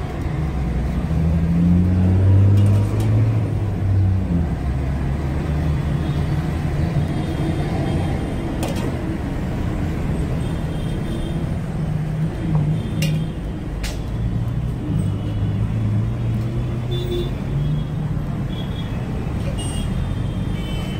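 Steady rumble of road traffic and vehicle engines running nearby, with a few sharp clicks about halfway through.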